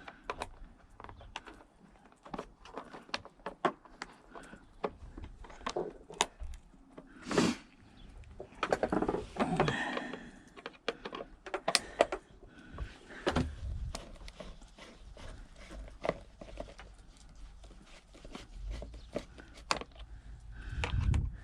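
Hands and tools working on a small generator's engine parts: irregular clicks and knocks, with a brief hiss about seven seconds in and a longer scraping, rustling patch around nine seconds.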